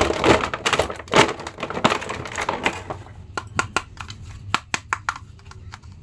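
Clear plastic wrapping crinkling loudly as hands rummage through a pile of hard plastic action figures, then a run of separate light clicks and taps as the plastic figures are handled.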